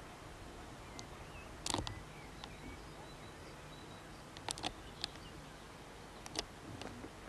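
Faint outdoor ambience with a few faint bird chirps and several sharp clicks, the loudest nearly two seconds in and a cluster later on.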